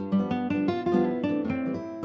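Background music: acoustic guitar, plucked and strummed notes at a steady pace.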